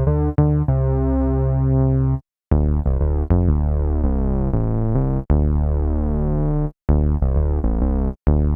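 MOK Miniraze wave-slicing synthesizer plugin playing chords: a short chord, two long held chords that change notes and cut off abruptly, then a few short chords near the end.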